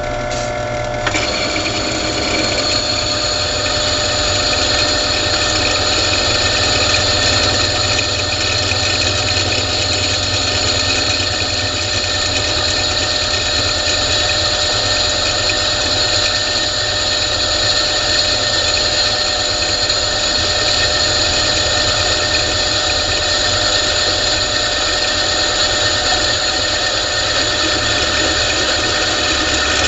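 Benchtop drill press running, a twist drill bit cutting steadily into the steel square tubing of a trailer hitch with cutting lubricant applied. A steady motor hum sits under the noise of the cut, which gets louder about a second in as the bit bites and then holds steady.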